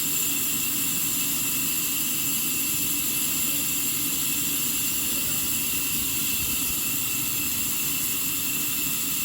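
Sawmill machinery running steadily: a continuous mechanical hum with a constant high whine over it.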